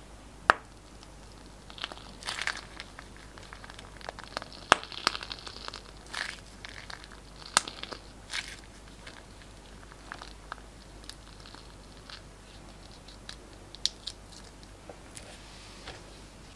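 Glossy slime being squeezed out of a piping bag onto a plate: irregular wet crackling and sharp pops of air, with several loud single pops among them, in bursts that thin out over the last few seconds.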